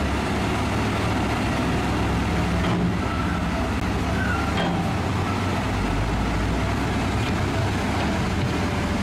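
A heavy dump truck's diesel engine runs steadily with a continuous low rumble while it tips its loaded bed.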